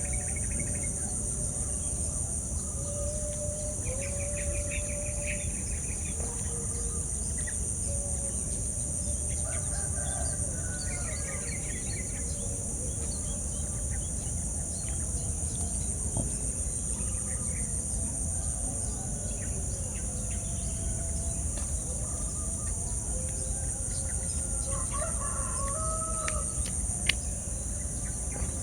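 Roosters crowing at intervals while other birds chirp and call, over a steady high-pitched insect drone.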